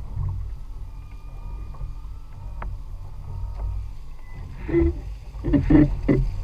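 Steady low rumble of wind and the boat, then from about four and a half seconds in a run of loud, irregular splashes as water churns at the boat's stern.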